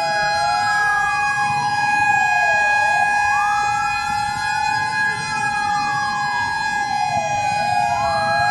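Emergency siren wailing slowly up and down, each rise and fall taking a few seconds, over steady high tones.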